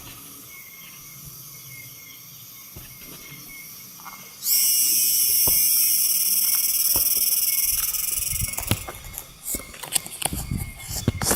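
A loud, high-pitched insect buzz starts suddenly about four and a half seconds in, holds for about four seconds and then fades, over a faint outdoor background with scattered clicks; near the end come irregular rustles and knocks of leaves and branches being handled.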